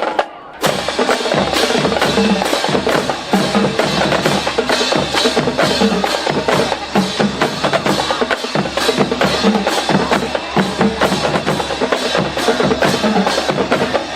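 Marching drumline playing a fast percussion rhythm: snare, bass and pitched tenor drum strokes. It breaks off briefly right at the start and comes back in about half a second later.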